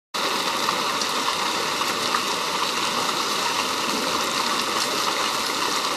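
Hail and heavy rain pelting pavement and grass: a steady dense hiss dotted with small ticks of individual stones striking.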